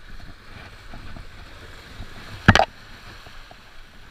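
Waves washing against jetty rocks, with wind rumbling on the microphone, and one sharp knock about two and a half seconds in.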